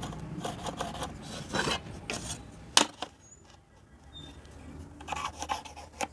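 Pencil scratching marking lines on a 6 mm MDF board, drawn against a steel try square, in short strokes. There is one sharp tap about three seconds in, then a quieter pause before more scratching near the end.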